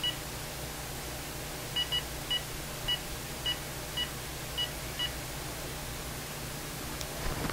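Phone keypad beeping as a number is dialled: about nine short, identical key-press beeps at an uneven pace, one per digit. A faint click follows near the end.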